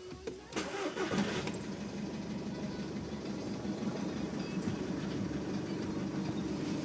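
Skoda Superb 2.0 diesel engine cold-started: it cranks and catches about half a second in, then settles into a steady idle. The owner presents this cold running as a demonstration of a knocking flywheel.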